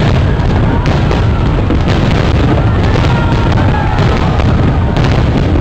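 Fireworks display at close range: many shells bursting in quick succession, running together into a steady, loud rumble with sharper cracks now and then.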